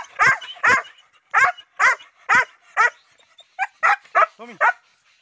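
Dog barking in a quick series of about ten short, high barks, roughly two a second, that stop near the end.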